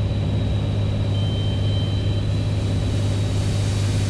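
Beechcraft A36 Bonanza's piston engine and propeller heard from inside the cockpit: a steady, low, even drone with no change in pitch, the airplane on approach with its gear down.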